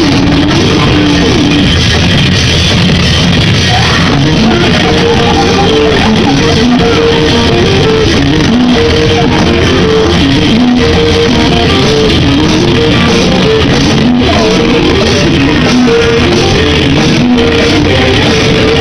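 Live noise-rock band playing loud: electric guitar repeating a riff over a drum kit, with a singer on a microphone, recorded close up.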